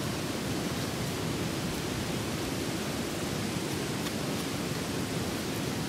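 Steady rushing of a nearby waterfall, with a few faint clicks of a knife shaving a wooden stick.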